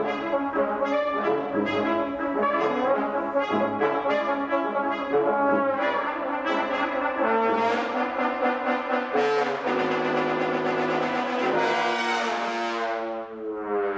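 Brass ensemble of trumpets, horn, trombones and tuba playing: quick repeated short notes at first, then held chords, building to loud full chords near the end.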